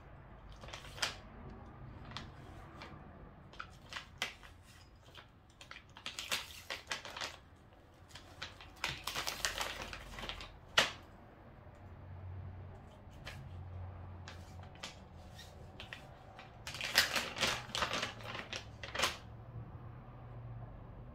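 Plastic cat-treat pouch crinkling and rustling as a cat paws, bites and drags it. It comes in irregular bursts of crackles, with one sharp crack about halfway through and a loud cluster near the end.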